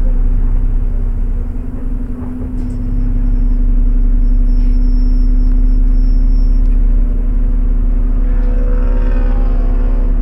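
Bus engine and running gear heard from inside the passenger saloon: a steady low rumble with a hum, getting louder about three seconds in. A higher whining tone joins briefly near the end.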